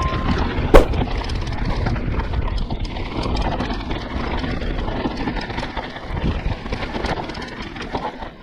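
Mountain bike running down a dirt trail on a GoPro: wind rumbling on the microphone, tyres rolling over dirt and the bike rattling, with a sharp knock about a second in. It gets quieter toward the end.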